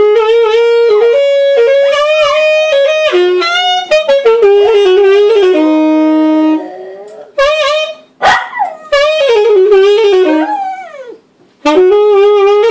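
A saxophone playing a melody in short phrases, with a dog howling along to it. There is a sharp click about two-thirds of the way through.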